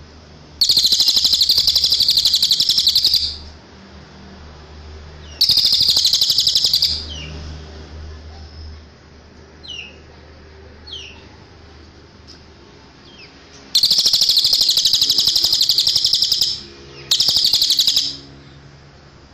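Cililin songbird singing four loud, rapid, buzzy trills of one to three seconds each, with a few soft short rising notes between them.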